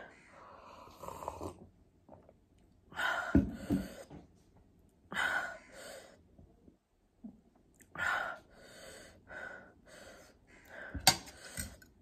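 A woman's breathy gasps, sucking air in and blowing it out in bursts every two to three seconds to cool a mouth burning from spicy food. A sharp click comes near the end.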